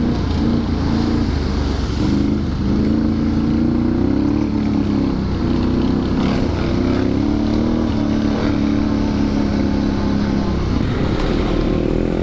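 ATV engine running hard on a trail ride. Its pitch climbs and drops again and again as the throttle is worked.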